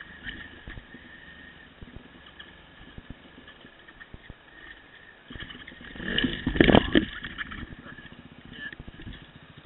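Yamaha dirt bike running at low revs over a rocky, rutted trail, with scattered knocks. About six seconds in comes a loud clattering crash as the bike goes down onto its side.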